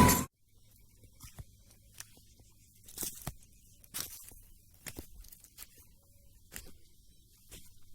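Background music cuts off abruptly, then faint, irregular crunching clicks sound roughly once a second.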